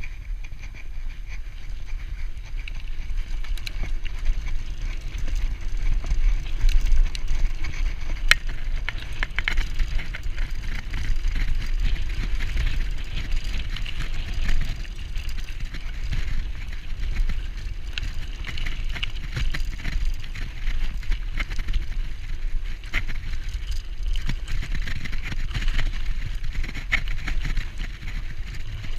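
Mountain bike ridden fast along a dirt forest trail, heard from a chest-mounted camera: a steady low rumble and hiss of tyres on the dirt and air rushing past, with the bike rattling and scattered clicks and knocks over the bumps.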